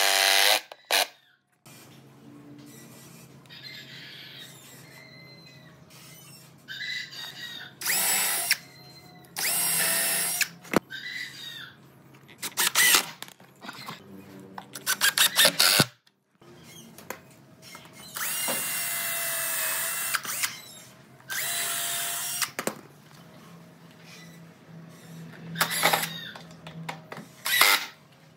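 Hitachi cordless impact driver driving screws into pine boards, in about eight separate bursts of one to two seconds each, the motor whirring with a rapid rattle.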